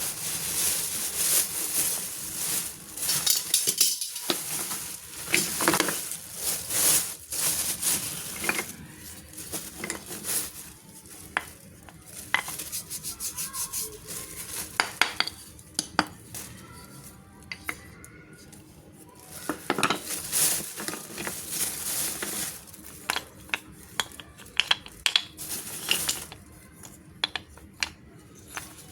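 Packaging and small objects being handled: a busy run of sharp clicks, light clatter and crinkling, thinning out at times.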